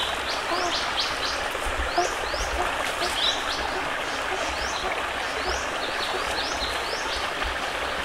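Forest ambience: birds calling over a steady rushing hiss like a distant stream. One bird gives short, high rising chirps about twice a second, and soft low hooting notes come now and then.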